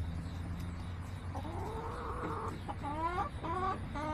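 Chicken calling: one drawn-out, arching call about a second in, followed by four short rising notes in quick succession.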